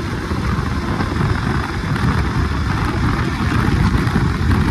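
Wind rushing and buffeting over the microphone of a motorcycle rider at highway speed, with the KTM RC 200's engine and road noise underneath.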